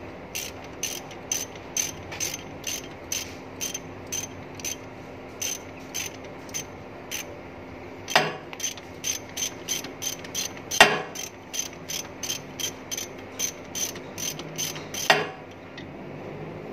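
Hand ratchet wrench clicking in steady strokes, about two to three clicks a second, as a mounting bolt of the reach truck's DC steering motor is run in. Three louder knocks stand out among the clicks, and the clicking stops shortly before the end.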